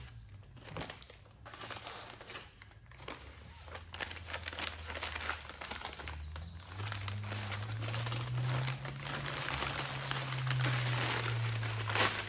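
Packaging being unwrapped by hand: crinkling and rustling of wrapping with many small clicks and crackles, getting busier and louder in the second half. A low steady hum joins about seven seconds in.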